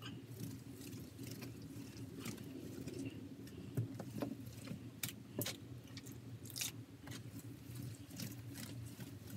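A scouring sponge and hand scrubbing grimy, wet debris on a sign face, making irregular rasping scrapes and wet crunches, with a low steady hum underneath.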